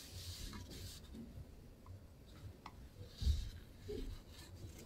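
Paper towel rubbing against the inside of a nonstick frying pan, wiping away excess oil. There is a soft bump a little over three seconds in.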